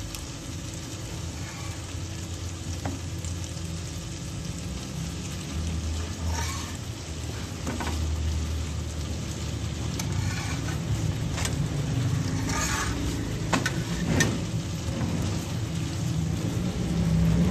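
Flatbread dough cooking on a hot tawa griddle with a low, steady sizzle. A spatula presses and scrapes it against the griddle several times in the second half.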